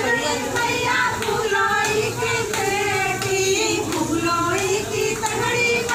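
A group of women singing a village folk song, unaccompanied and high-pitched, to accompany a dance.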